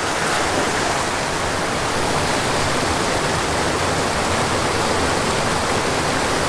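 Mountain stream rushing over boulders and small cascades: a steady, even rush of whitewater.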